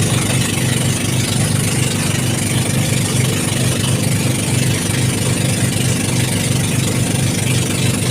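Boat engine running steadily, with an even low chugging pulse under a constant hiss.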